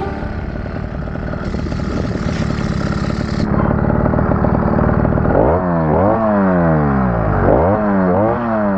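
Small two-stroke motorized-bicycle engine running, then revved twice in the second half: each time the pitch climbs quickly and falls away slowly.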